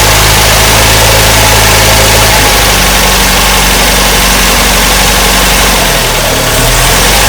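MGB's 1.8-litre B-series four-cylinder engine running at idle on full choke, just after being started for the first time in months. The engine note shifts about two and a half seconds in and dips briefly near the end.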